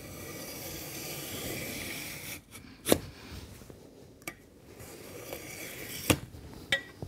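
Utility knife blade drawn along a metal straightedge through foam centred board: a steady scraping cut lasting about two and a half seconds. Then several sharp knocks, the loudest about three seconds in, as the ruler is moved and set down on the board again.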